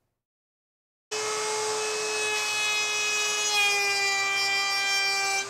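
Power tool running with a steady high whine that starts suddenly about a second in. Its pitch sags slightly partway through, it breaks briefly near the end, then runs on.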